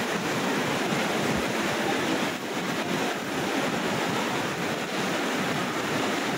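Steady background din, an even rush of noise with no distinct single sound standing out.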